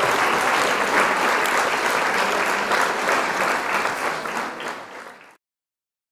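Crowd applauding, many hands clapping together, fading out and dying away about five seconds in.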